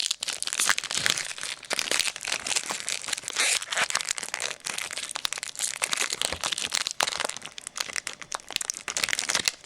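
Trading-card pack wrapper crinkling and tearing in the hands as a new pack is opened, a dense run of crackles.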